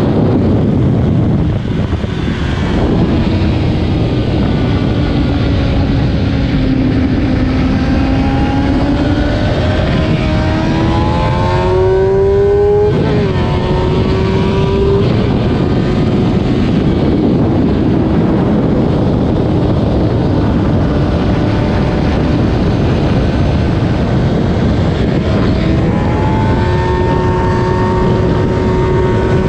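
Stock 2008 Kawasaki ZX-10R's inline-four engine at racing speed, its pitch climbing and falling with throttle and gear changes, including one long rise that drops off suddenly about halfway through. Heavy wind rush on the onboard microphone runs under it.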